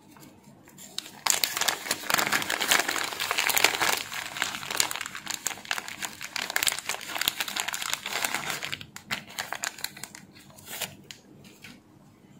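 Thin clear plastic bag of replacement desoldering-gun filter discs crinkling as fingers handle it. The crinkling is dense from about a second in and thins to a few scattered crackles after about eight seconds.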